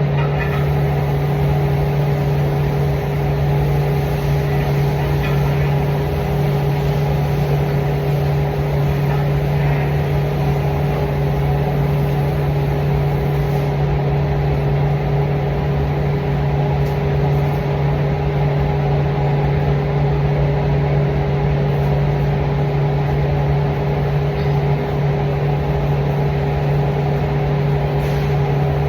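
A steady machine hum with a constant low drone and a fainter higher tone, unchanging throughout.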